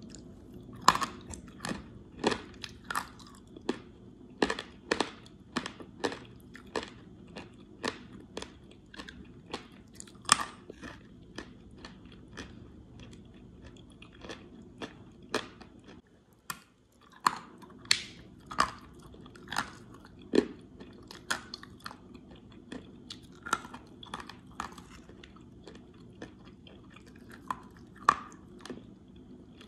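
Close-up chewing of clay: sharp, irregular crunches, one or two a second, as a mouthful is bitten and ground between the teeth, with a brief lull about halfway through.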